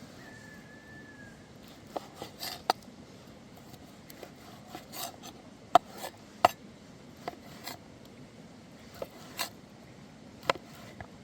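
Irregular sharp clicks and short scrapes of utensils or tools being handled, about a dozen of them spread over several seconds, the loudest two near the middle.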